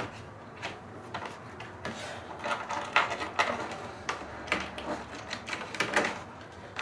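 Irregular light clicks and taps of small metal parts being handled as a battery charger pigtail's ring terminal and the terminal bolt are fitted by hand onto a battery's positive post.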